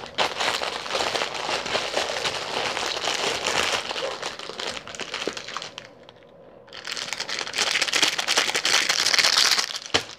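Plastic candy wrappers crinkling close to the microphone: a long stretch of crackling, a brief lull about six seconds in, then more crinkling.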